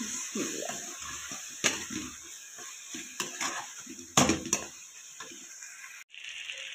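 Onion-tomato masala sizzling as it fries in a nonstick kadai, stirred with a metal spoon that scrapes the pan and strikes it with several sharp clinks. The sound cuts out briefly near the end.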